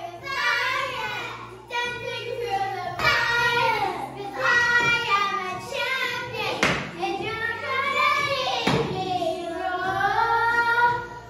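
Young girls singing loudly in long, drawn-out notes, with two sharp knocks about two seconds apart in the second half.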